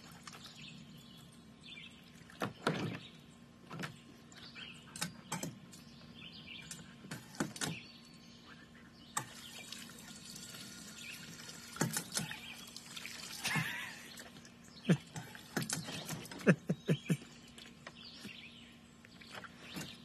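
A step-on paw-pedal dog water fountain in a plastic kiddie pool spurting and splashing in short, irregular bursts as an Australian Shepherd presses the pedal and bites and laps at the jet of water.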